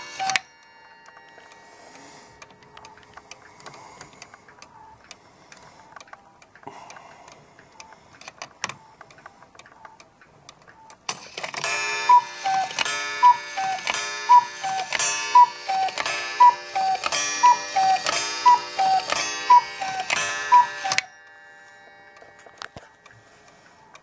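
Repaired cuckoo clock striking. At the start there is one two-note cuckoo call from the new bellows, then quiet ticking of the movement. About halfway through, a run of about nine gong strikes and cuckoo calls begins, a high note then a lower one, roughly one a second, with the gong ringing through, and it stops abruptly. This is the gong-and-cuckoo strike working again after new bellows, new lift wires and a gong-hammer adjustment.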